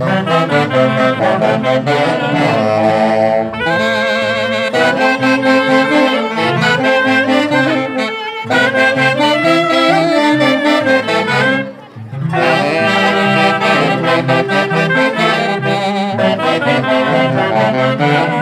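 Andean orquesta típica music led by saxophones playing a melody with a wide vibrato. The band drops out briefly about twelve seconds in and then picks up again.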